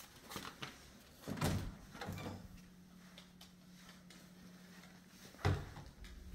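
Interior closet door opened with a thud about a second and a half in, then pushed shut with a sharper, louder knock near the end, over a faint steady low hum.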